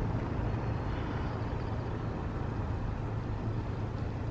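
A car's engine idling with a steady low hum, heard from inside the car.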